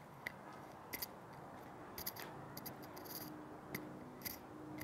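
Faint, light metallic clicks and ticks, seven or eight of them at uneven spacing, over a low steady hum that sets in about two seconds in.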